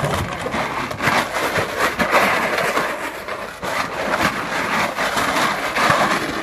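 Empty plastic bottles clattering and crackling as a police dog tears out of a pile of them and scuffles with a helper holding a crate of bottles, a dense run of crackly clicks.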